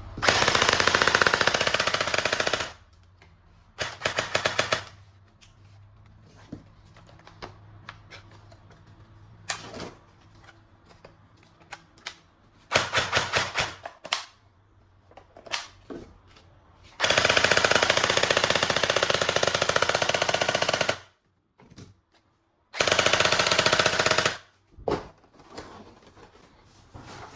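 Toy gun firing in bursts of rapid machine-gun-like clatter, five bursts of one to four seconds each, the longest past the middle, with small clicks and handling knocks between them.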